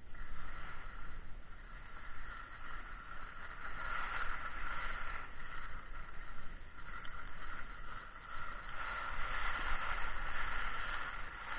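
Skis sliding over packed snow, a steady hiss that swells twice as the skier picks up speed or turns, over a low rumble of wind on the microphone.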